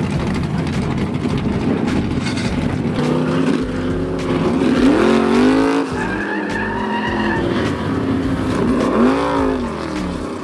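Two pickup trucks drag racing: the engines rumble, then rev up and climb in pitch as the trucks launch and pull away. The pitch drops at a gear change about six seconds in and climbs again near the end.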